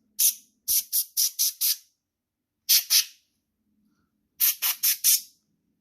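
Short blasts from a can of compressed air duster blowing dust out of the laptop's cooling fans. There is a quick run of six puffs, then two, then four more.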